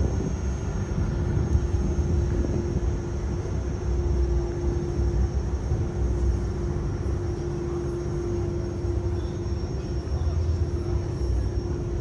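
Steady low city rumble, with a constant mid-pitched hum running over it.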